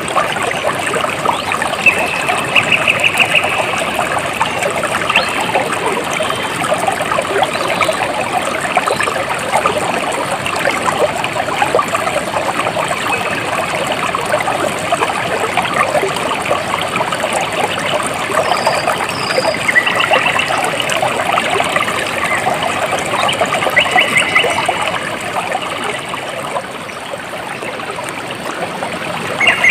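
Small stream trickling and babbling steadily, with a few short, rapid, high trills over the water several times.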